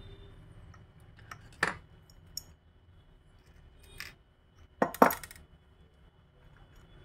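Small hard clicks and clinks from the parts of a Jawa motorcycle lock being taken apart by hand, pieces knocking together and set down on the bench. There are about five separate clicks, the loudest a quick pair about five seconds in.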